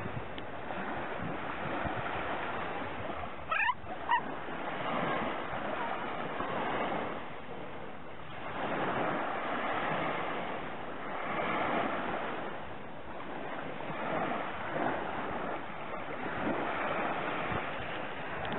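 Small waves breaking and washing up a sandy shore, the surf swelling and fading every few seconds. About four seconds in, two short high-pitched cries stand out above it.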